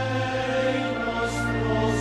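A slow hymn with singing voices over long-held notes and a steady low accompaniment.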